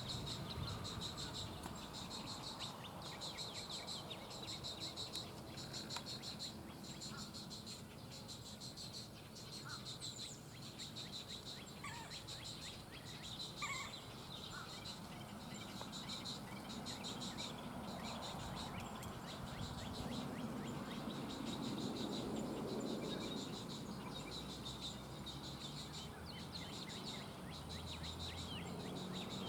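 Insects trilling in a steady, pulsing high-pitched chorus, with a few short bird chirps and a low background rumble that swells midway.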